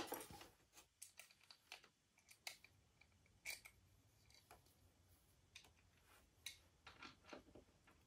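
Faint, scattered clicks and light knocks of hard plastic TV parts being handled and fitted by hand.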